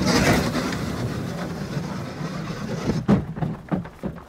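Sled sliding fast down an ice track: a steady rumbling rush of runners on ice, with a few sharp knocks near the end.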